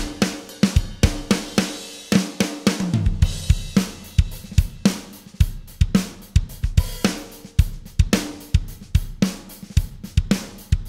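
Recorded drum kit (kick, snare, hi-hat and cymbals) playing a steady groove through a Wes Audio Dione SSL-style VCA bus compressor, its sidechain filter set at 90 Hz so the kick drum's low-end transient sneaks through the compression.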